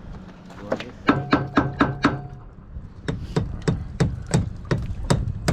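A series of sharp knocks, as of something hard being struck over and over. The first quick run of about four a second carries a short ringing tone; after a pause the knocks go on more slowly, about three a second.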